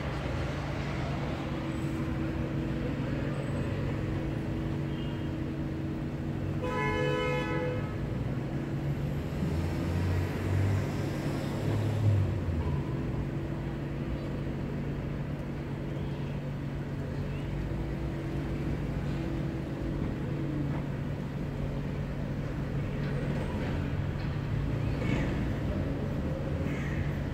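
City traffic ambience with a steady low rumble and hum. A vehicle horn toots once for about a second, about seven seconds in.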